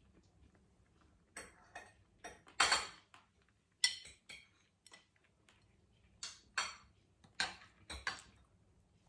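Metal fork clinking and scraping on a ceramic plate: about a dozen irregular clinks and short scrapes, the loudest around three to four seconds in.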